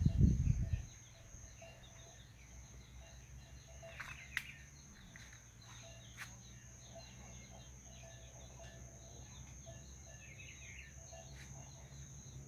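Faint countryside ambience: a steady high insect drone with scattered bird chirps. A short low rumble at the very start and a couple of sharp clicks.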